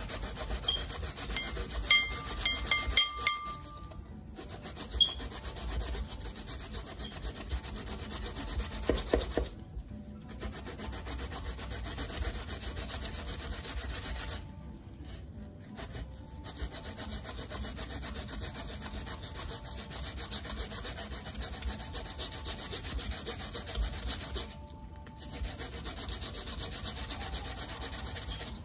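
Malanga root being grated on a stainless steel box grater into a glass bowl: a steady run of rasping strokes, broken by a few short pauses. A few short metallic pings about two to three seconds in, from the grater knocking against the bowl.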